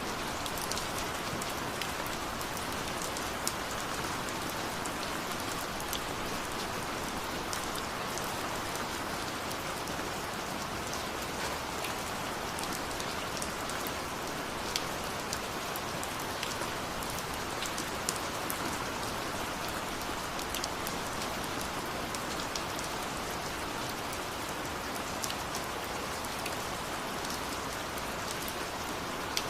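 Steady rain falling, with individual drops clicking close by against the hiss of the downpour.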